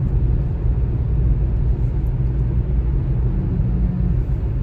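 A car on the move: a steady, loud low rumble of engine and road noise, without letting up.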